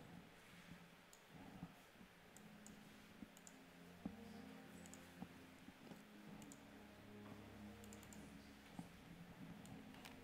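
Faint, scattered clicks of a computer mouse as menus and settings are clicked, irregular and a second or so apart, over a faint low hum.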